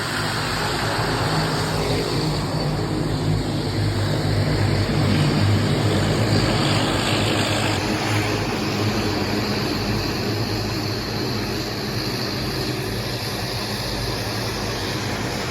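An engine running steadily with a low, even hum throughout.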